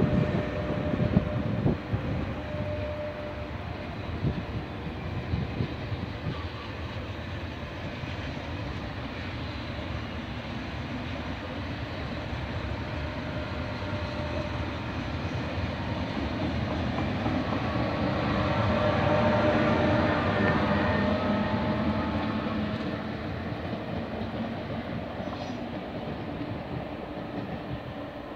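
A TGV high-speed train rolling through the station, a steady rumble of wheels on rail that swells to its loudest about two-thirds of the way through, then fades as the last cars pass. Wind buffets the microphone in the first couple of seconds.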